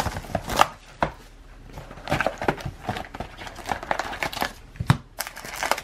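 Foil trading-card packs and a cardboard card box being handled: crinkling wrappers and rustling cardboard as the packs are lifted out of the box's tray, with a few sharper clicks.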